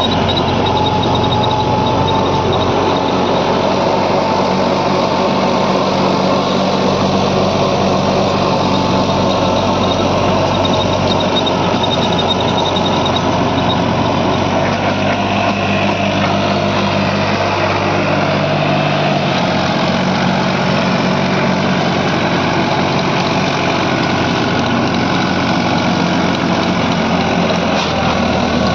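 New Holland 3630 tractor's three-cylinder diesel engine running steadily under load, driving a rear-mounted rotary tiller whose blades churn through dry soil.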